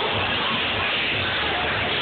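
Music playing over the dense chatter of a packed bar crowd.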